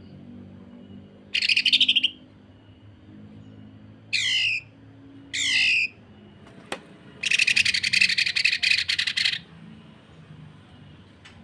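Green leafbird (cucak ijo) singing its harsh 'sewing machine' calls. A short rattling burst, then two quick down-slurred notes, then a long rapid stuttering rattle of about two seconds. A single sharp click comes just before the long rattle.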